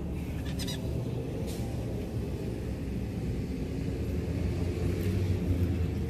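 A steady low outdoor rumble with a faint hiss above it, slowly growing louder, with faint clicks about half a second and a second and a half in.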